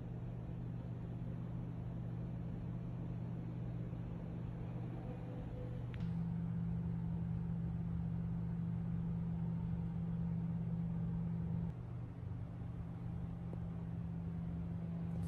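A steady low mechanical hum under faint background noise. It gets louder about six seconds in and drops back near twelve seconds.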